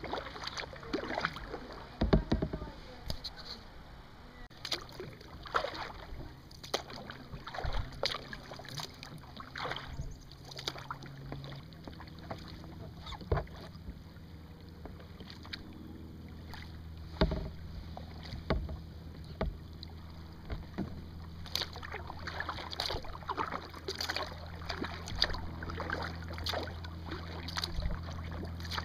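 Kayak paddling: the paddle blade dipping and splashing in irregular strokes, with a couple of louder knocks, one about two seconds in and another about halfway through.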